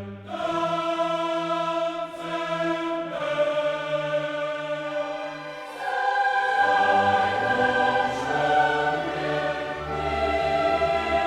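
Background music: sustained choral voices with orchestral accompaniment, swelling fuller about six and a half seconds in.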